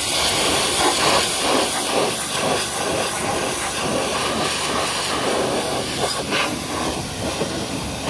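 High-pressure washer lance spraying a jet of water onto a combine harvester's engine and metal panels, washing off caked dust: a steady hiss of water spattering on metal.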